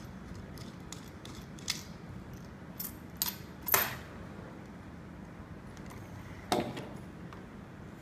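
A few sharp clicks and knocks of hard parts as hands handle an inspection camera's wheeled tray at its pole mount, the loudest a little before four seconds in and another about six and a half seconds in.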